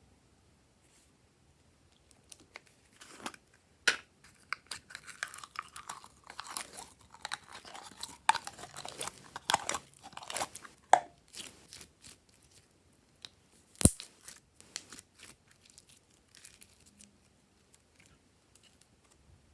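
Glossy slime being squished and stretched by hand, crackling and popping in dense runs, then thinning out. One sharp click about two-thirds of the way through.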